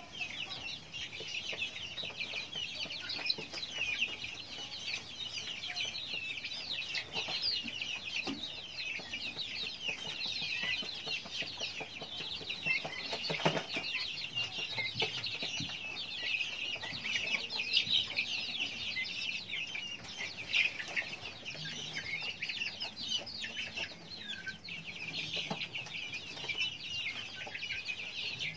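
A flock of young guineafowl (keets) chirping and peeping continuously, many high calls overlapping. There is one brief knock about halfway through.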